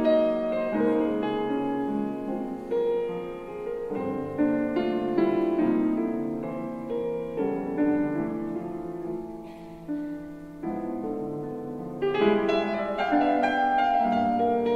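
Solo piano music: chords and single notes ring and fade. The playing thins and grows quieter around ten seconds in, then fuller chords return about twelve seconds in.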